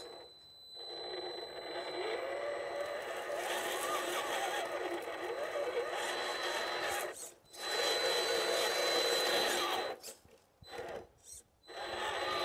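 RC crawler's electric motor and geartrain whining under throttle, the pitch rising and falling as the throttle is worked. It cuts out briefly about seven seconds in and then stops and starts in short blips near the end.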